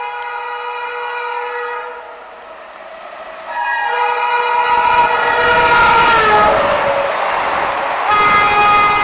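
Shrill honking of a WAP-7 electric locomotive's horn as the express speeds past. A first blast ends about two seconds in; a longer, louder one starts about three and a half seconds in, its pitch dropping as the locomotive passes. The rushing noise of the passing train follows, and another blast starts near the end.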